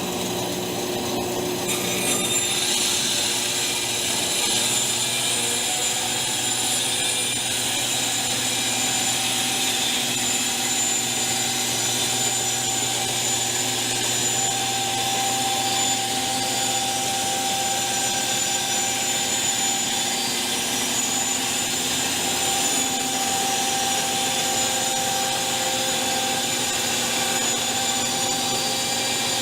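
Bandsaw running and cutting a rough oak board, the blade entering the wood about two seconds in and the cut then going on steadily.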